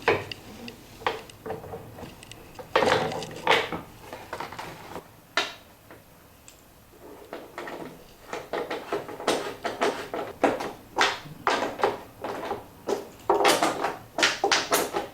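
Clicks, knocks and scrapes of a Hotpoint washer-dryer door being handled and fitted back onto the machine, coming in irregular clusters with a quieter stretch midway and a busy run of clicks near the end.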